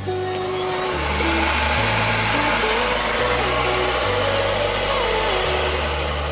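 CNC router spindle running: a steady high-pitched whir with a thin whining tone, getting louder about a second in, over background music.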